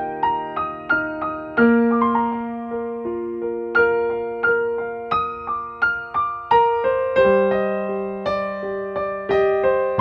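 Background music: a piano melody of struck notes that fade away, a few per second, over held lower notes.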